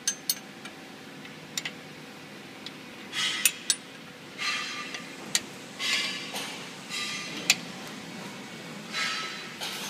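Sharp metallic clinks and knocks from parts of a paper cup lid machine being handled, with short hissing bursts every second or two over a faint steady hum.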